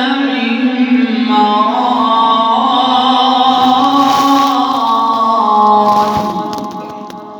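A male Quran reciter sustains a long melodic phrase in the tajweed style, its pitch stepping up about a second and a half in. The voice fades away near the end.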